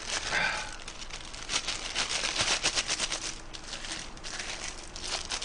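Thin clear plastic disposable gloves crinkling and crackling in rapid clusters as they are pulled onto the hands and smoothed down.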